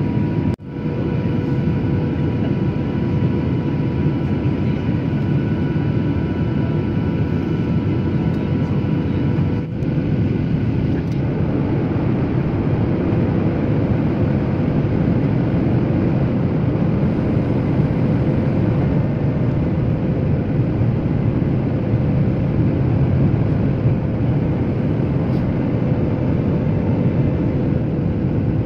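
Steady cabin noise of a jet airliner during descent: a constant rush of engine and airflow noise with a faint steady whine running through it. The sound dips out sharply about half a second in and briefly again near ten seconds.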